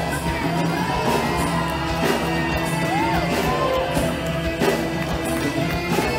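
Live band playing an upbeat Malay pop-traditional dance tune, with a drum kit keeping a steady beat over held keyboard and guitar tones.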